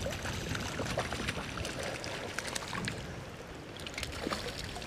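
Hooked rainbow trout splashing and thrashing at the surface of a creek, small irregular splashes over running water and a steady low rumble.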